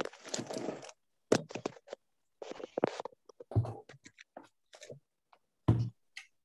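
Scattered rustles, scrapes and knocks from pupils handling things at their desks, picked up by video-call microphones that cut to silence between sounds. A heavier thump comes about a second in and another near the end.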